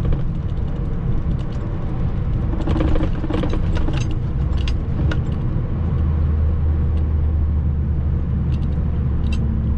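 Semi-truck cab interior while driving: steady diesel engine drone mixed with road noise. About six seconds in, a low steady hum grows stronger, with a few light clicks or rattles before it.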